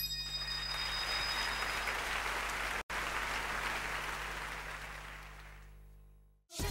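Theatre audience applauding at the end of a song, the applause dying away over the last two seconds; a few high ringing tones fade out over the first two seconds, and the sound cuts out for an instant near the middle.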